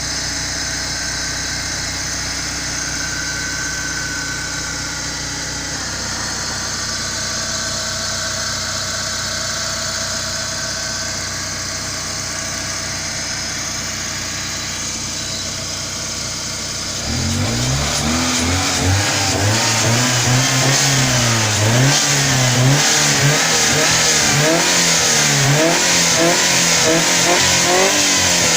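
BMW E36 Compact's M43 TU four-cylinder petrol engine, with 325,000 km on it and never overhauled, idling steadily. About two-thirds of the way in it is revved repeatedly in short blips, its pitch rising and falling, then it settles back down near the end.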